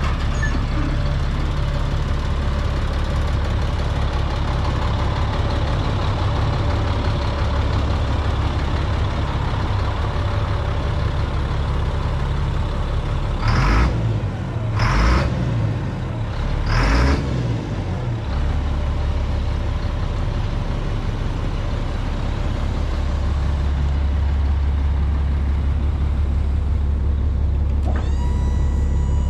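Truck engine idling steadily, with three short loud bursts of noise about half-way through. Near the end a steady electric whine starts up: the liftgate's hydraulic pump motor running.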